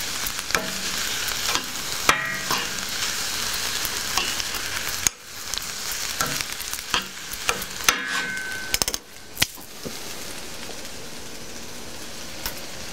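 Sliced yellow onions sizzling in oil in a small frying pan as they soften, stirred with metal tongs that click and scrape against the pan. About nine seconds in the stirring stops and the sizzle settles to a quieter steady hiss.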